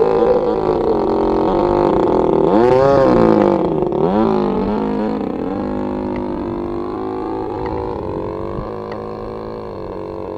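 A small engine's buzz with many overtones. It revs up and back down about three seconds in, then settles and slowly fades.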